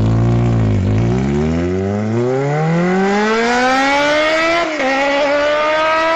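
A motor vehicle engine accelerating, its pitch rising steadily for several seconds, then dropping briefly and picking up again about five seconds in, like a gear change.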